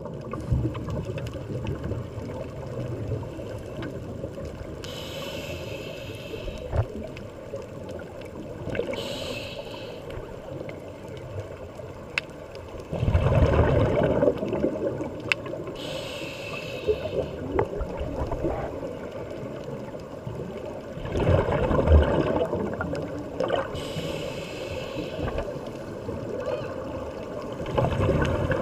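Muffled underwater water noise heard through a camera housing, with three louder bubbling bursts spaced several seconds apart, typical of a scuba diver's exhaled bubbles, and fainter hissing in between.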